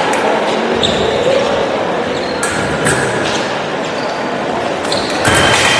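Foil fencing bout on the piste: footwork thuds and light clicks of blades against the hall's steady background noise. A heavier stamp comes near the end, and a high steady tone starts with it.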